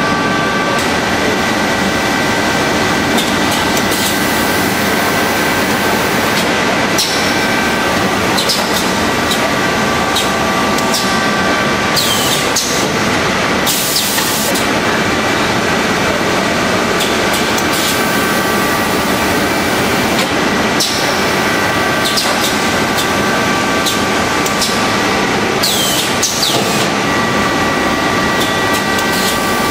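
Automatic rice bagging machine running: a loud, steady mechanical din with a few steady whining tones, broken every few seconds by short, sharp hisses of air as the machine cycles.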